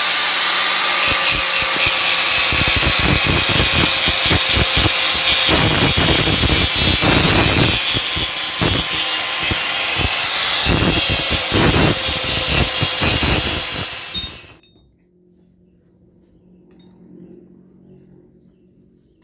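Electric angle grinder running at full speed and grinding a piece of hardened steel from an iron-crusher blade: a steady high whine over a harsh grinding hiss that rises and falls as the disc bites. It cuts off suddenly about fourteen and a half seconds in, leaving only faint background noise.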